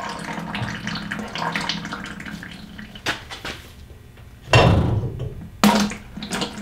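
Hydraulic oil trickling and dripping out of a Case 1845c skid steer's bucket cylinder into a catch bucket while the piston rod is worked in the barrel. Metal clinks from the rod are heard, with two loud knocks about four and a half and five and a half seconds in, over a steady low hum.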